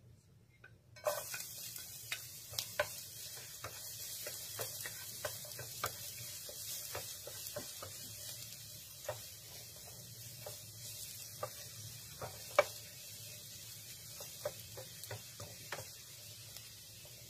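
Chopped garlic sizzling in hot oil in a non-stick pan, starting suddenly about a second in, with a wooden spatula stirring and tapping against the pan.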